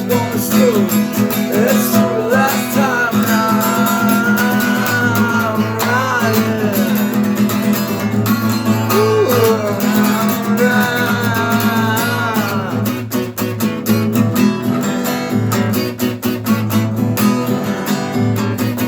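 Instrumental break of a country song: acoustic guitar strumming steady chords under a bending melodic lead line, which drops out about twelve seconds in, leaving the strummed rhythm alone.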